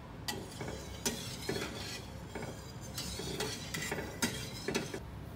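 A spatula stirring milk in a stainless steel pot as it heats, scraping and clinking against the pot's bottom and sides in irregular strokes about twice a second.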